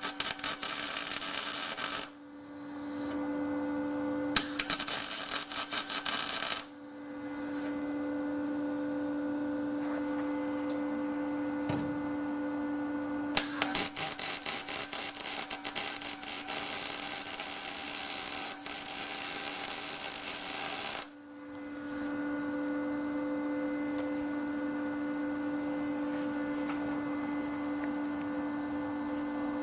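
Welding arc crackling and sputtering in three runs of patch welding on old car sheet metal, the last and longest lasting about seven seconds. A steady hum fills the pauses between the runs.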